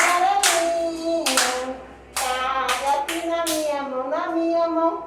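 A voice singing long, held notes of a simple children's song, with several hand claps falling among the notes.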